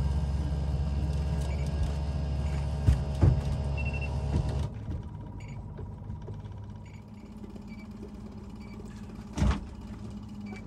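Boat's outboard motor running steadily while trolling, then dropping to a much quieter hum about halfway through. A few short knocks, the loudest near the end.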